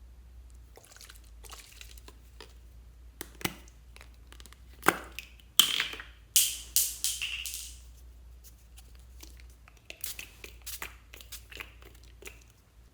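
Slime being worked by hand, squished and stretched, giving sticky crackles and clicks, with a run of loud pops about five to seven seconds in and more small clicks near the end.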